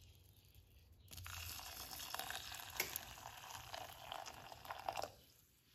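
Boiling water poured from a saucepan onto dry instant couscous in a glass bowl, a hiss with small crackles as the grains take up the water. It starts about a second in and stops about five seconds in.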